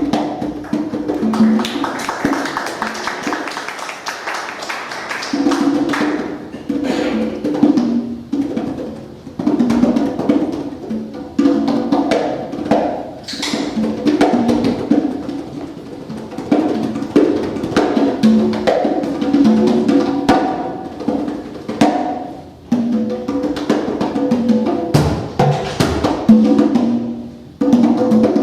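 Congas played by hand: a stream of resonant open tones and sharp slaps in loose, irregular free-improvised phrases.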